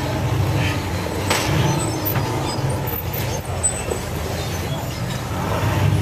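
Engines of off-road race buggies crawling up a boulder section, revving in repeated surges under load. A sharp knock comes about a second and a half in.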